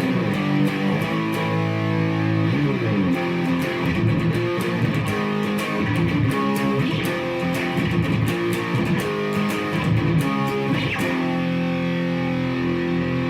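Electric guitar (a Fender Stratocaster through an Orange amp) with heavy overdrive distortion, playing a rock riff. Held chords give way to a run of quickly picked notes, and a chord is left ringing near the end.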